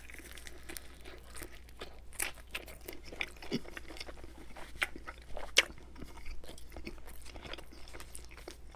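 Close-miked chewing of a bite of Domino's Brooklyn-style pepperoni pizza, the crust crunching in short, irregular crackles. The sharpest crunch comes about five and a half seconds in.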